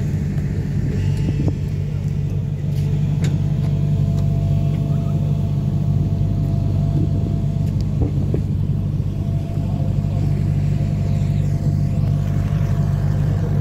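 An engine running steadily: a low, even hum that holds without change, with a few faint clicks.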